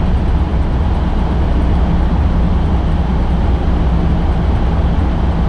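Steady diesel engine drone and road noise heard inside a semi-truck's cab while cruising at highway speed.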